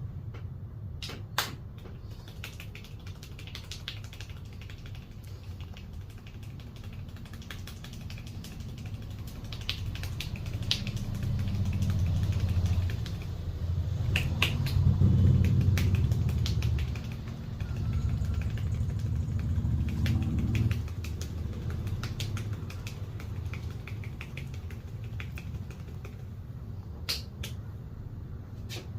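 Street-barber head massage: scattered sharp snaps, taps and slaps of the barber's hands and fingers on the head, over a low rumble that grows louder for several seconds in the middle.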